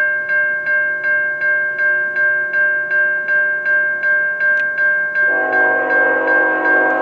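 CN ET44AC locomotive's Ekyrail electronic bell ringing, the same strike repeating about three times a second. About five seconds in, the Nathan K5HL five-chime air horn starts sounding a held chord over it.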